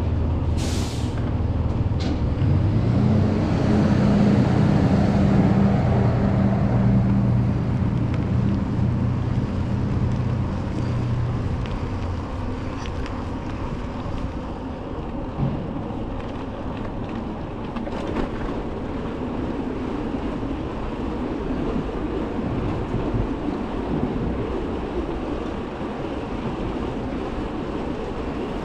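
Steady rumble of riding along the trail: wind buffeting the microphone and tyres rolling on the trail surface. A low hum builds and fades away between about 3 and 11 seconds in, louder than the riding noise.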